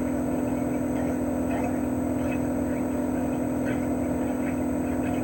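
Chofu AE-2844PX mini-split air conditioner outdoor unit running steadily in cooling mode. Its GMCC single-rotary inverter compressor holds a constant hum with several steady higher tones, over the even rush of the propeller fan.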